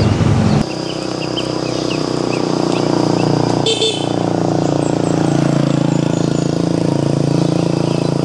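A steady engine hum with short high chirps repeating over it and a single click about four seconds in.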